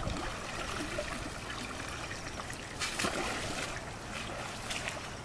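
Water trickling and splashing, with a louder splash about three seconds in.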